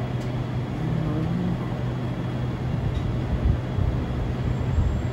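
Steady low hum of refrigeration and air-conditioning compressor units running, with an uneven low rumble underneath.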